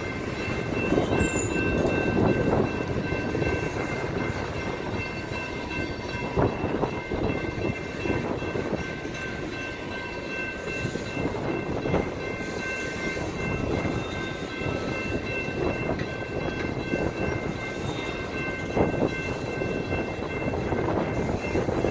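Freight train of tank cars rolling past over a grade crossing: a steady rumble with a few knocks from the wheels, and a steady high ringing tone over it.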